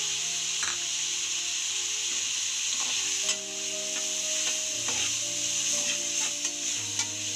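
Chopped onion, tomato and masala frying in oil in a metal kadhai, with a steady sizzle. A perforated metal slotted spoon stirs it, scraping and tapping against the pan several times.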